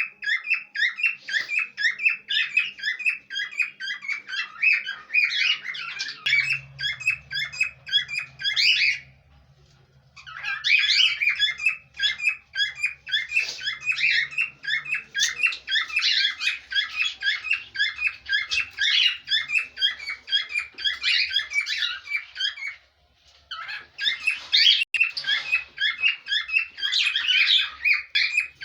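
Pet parrots chirping rapidly and continuously in long runs of high, quick calls, broken by two short pauses, about nine seconds in and again about two-thirds of the way through.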